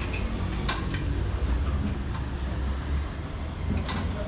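Workshop background noise: a steady low hum with a few short, sharp clicks and clinks, about a second in and again near the end.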